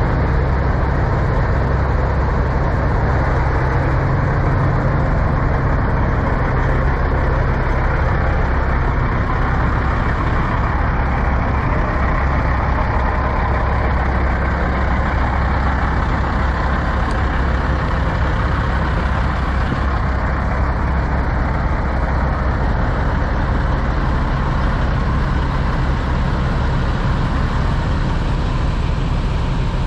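Diesel engines of parked semi trucks idling: a steady low drone that holds even throughout.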